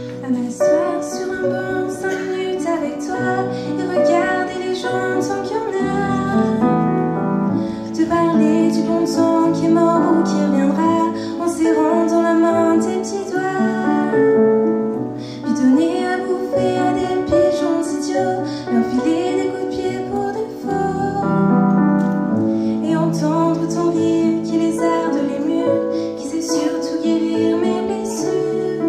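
A girl singing a French song solo through a microphone, accompanied by a stage keyboard playing in a piano sound. The keyboard is heard on its own for a moment before the voice comes in.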